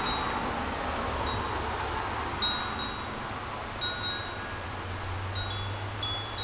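Hummingbird wind chime knocked by the wind, ringing out a handful of scattered high notes that hang briefly, over a steady rush of strong wind.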